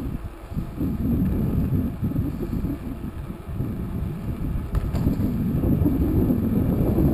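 Wind buffeting the microphone of a camera on a moving bicycle: a dense low rumble that gets gradually louder.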